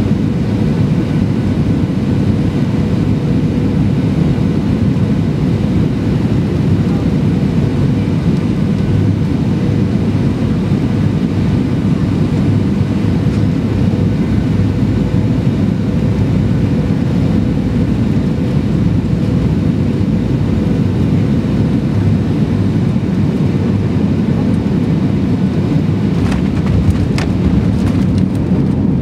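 Cabin noise inside a Boeing 737-800 on final approach: the steady rush of airflow and the CFM56-7B engines at approach power, with a faint steady tone. Near the end come a few sharp knocks as the main wheels touch down on the runway.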